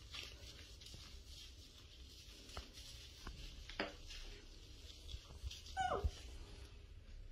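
Baby monkey giving a few short, high-pitched squeaks. The last and loudest, a little before the end, is a longer cry that falls in pitch.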